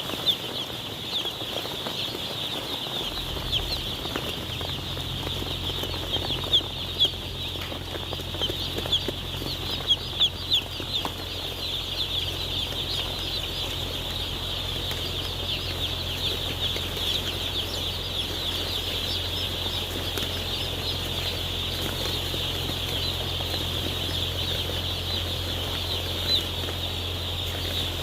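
A large flock of day-old chicks peeping continuously, many short high chirps overlapping. A steady low hum sets in a few seconds in, with a few knocks early on.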